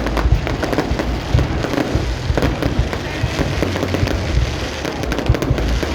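Aerial fireworks display: a dense, continuous crackle of many rapid pops and bursts over a low rumble.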